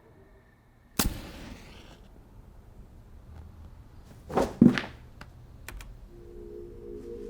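A sharp thunk about a second in, then two louder thumps in quick succession near the middle and a few faint clicks. Soft plucked-string music begins near the end.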